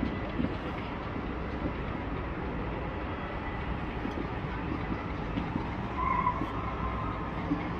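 Distant fireworks heard as a steady low rumble, with a few faint thuds.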